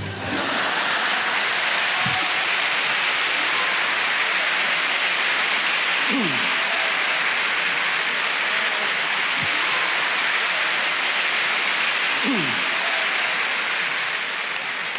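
A large audience applauding steadily, breaking out just as the orchestral music stops, with a few brief falling calls from the crowd heard over the clapping.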